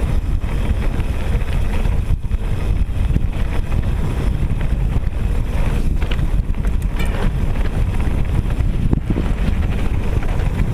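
Wind buffeting a GoPro's microphone on a fast mountain-bike descent, over the rumble of the tyres on a loose gravel trail, with a few sharp clicks and knocks from the bike over rough ground.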